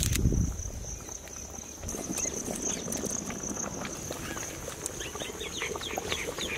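Rural outdoor ambience: a steady high-pitched insect drone. A thump comes at the very start, and a quick run of falling chirps, about four a second, comes in near the end.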